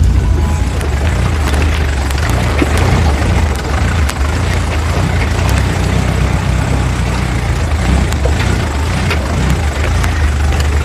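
Off-road vehicle's engine running steadily with a deep low drone, with scattered short clicks and knocks over it.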